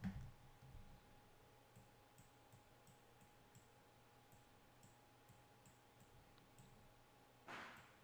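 Faint computer mouse clicks, small and irregular, over near-silent room tone, as curve handles are dragged in the editor. A soft low thump at the very start and a short soft hiss near the end.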